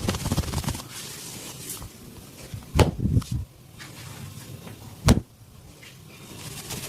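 Hand massage on a person's body: quick, even slapping strokes, then two loud, sharp cracks about two seconds apart.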